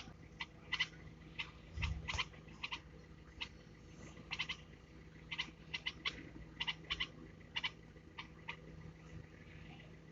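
Red-vented bulbul hatchlings giving short, high chirps in an irregular series, every half second or so and often in quick pairs. There is a low bump about two seconds in.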